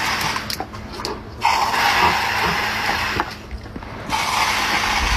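Garden hose spray nozzle hissing, the spray surging in two longer stretches, with sharp clicks throughout as a dog snaps at the water jet.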